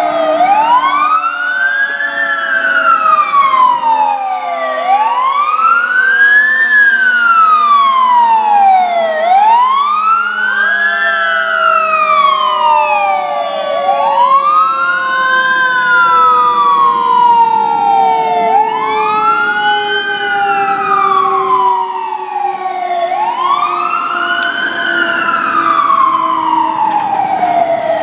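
Fire truck siren sounding a slow wail, rising and falling in pitch about every four and a half seconds, six times over. Fainter steady tones slide slowly downward underneath.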